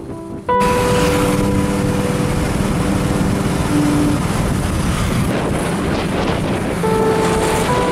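Wind rushing over the microphone with road noise from a vehicle moving at speed, jumping suddenly louder about half a second in and then holding steady. Background music with a few long held notes plays over it.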